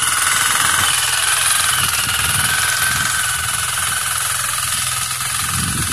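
Walk-behind power weeder's small engine running steadily under load as its rotary tines till the soil.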